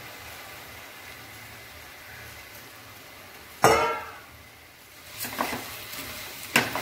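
Rice frying in ghee in a stainless steel pressure cooker with a faint steady sizzle. About three and a half seconds in, a steel bowl is set down with one loud clang that rings briefly, then a wooden spatula scrapes and stirs the rice in the cooker in short strokes.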